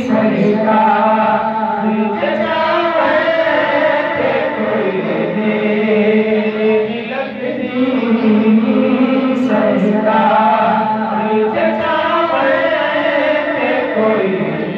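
A man singing a naat, Islamic devotional poetry, without instruments into a microphone, in long drawn-out melodic lines that waver in pitch.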